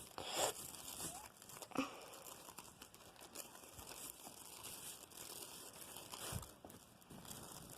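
Slime being squeezed and rolled between the hands, faint irregular sticky squishing and rustling, with a couple of sharper squelches about half a second and two seconds in and a soft low thud near the end.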